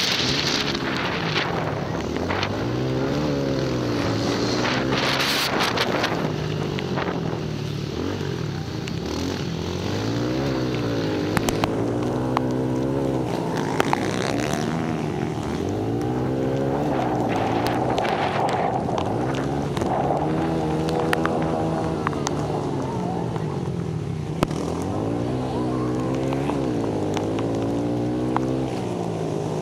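Pit bike engines racing, their pitch climbing and dropping back over and over every few seconds as the bikes rev through the gears.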